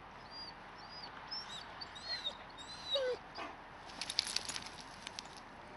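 Husky sled dog whining in a string of short, high-pitched whines that rise and fall, with one lower, falling whine about three seconds in. A quick run of clicks follows about a second later.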